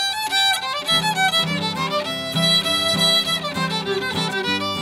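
Background music led by a fiddle, with lower accompanying notes coming in about a second in.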